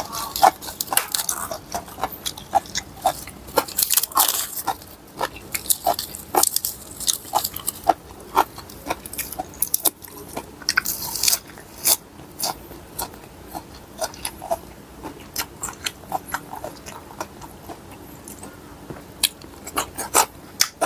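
A person chewing and crunching a mouthful of spicy papaya salad close to the microphone. Irregular crisp crunches and wet mouth clicks come through, with a couple of longer crunching bites about four and eleven seconds in.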